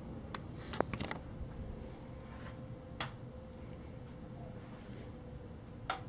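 Rocker wall switches clicking as they are flipped: several in quick succession about a second in, then single clicks about three seconds in and near the end, over a steady low hum.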